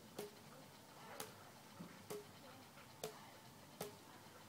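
Faint badminton rally: five sharp racket strikes on the shuttlecock, about one a second.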